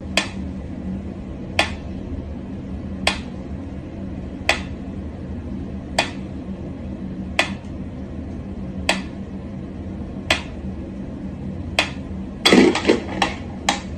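Pyramid-shaped mechanical metronome ticking slowly and evenly, one sharp tick about every second and a half. Near the end a quick run of louder clicks and knocks as a cat bats at the swinging pendulum.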